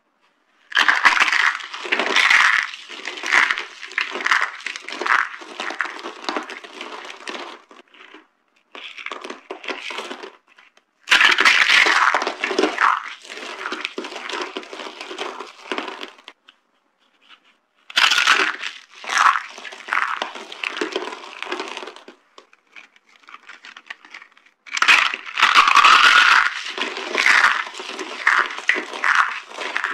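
Dried soap boxes being crushed, crunching and crackling as they crumble. It comes in several bouts of a few seconds each, every one loudest at its start, with short silent gaps between.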